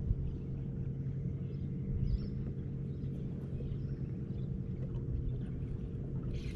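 Steady low mechanical hum of a boat's bow-mounted electric trolling motor holding the boat in place. A short hiss comes near the end.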